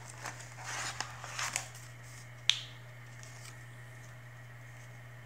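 MRE plastic packaging rustling and crinkling with small clicks as a child handles the ration's contents, then one sharp tap about two and a half seconds in.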